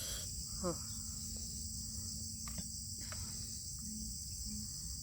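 Steady high-pitched insect chirring in the background, with a few faint clicks.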